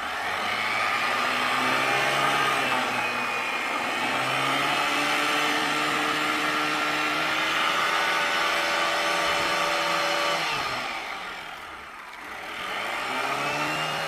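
Honda Activa scooter's single-cylinder four-stroke engine driving a homemade oil-barrel boat, its pitch rising and falling with the throttle. About eleven seconds in, the engine note drops and fades, then rises again.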